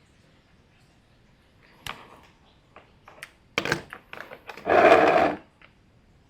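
Workshop handling noise: a few sharp clicks, then a loud rattling clatter lasting just under a second about five seconds in, like small parts being rummaged through or shaken in a container.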